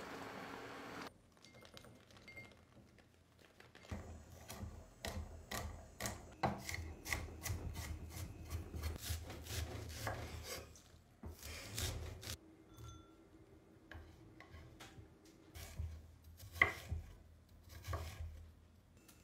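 Kitchen knife slicing vegetables on a wooden cutting board: a quick run of cuts through cabbage, then slower, sparser cuts through turnip.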